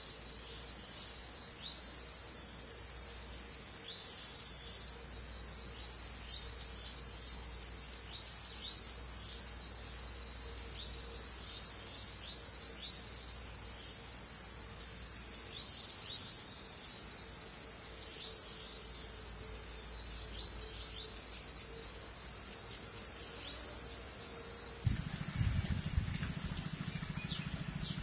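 An insect, cricket-like, trilling continuously at a high pitch with a fine rapid pulse. Near the end the trill stops and a low buzz takes over.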